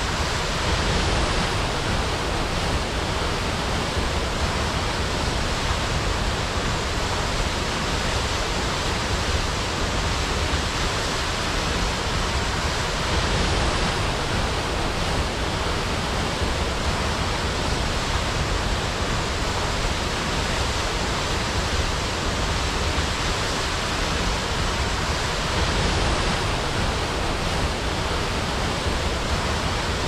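Waterfall: falling water rushing steadily, an even hiss with a strong low rumble beneath it.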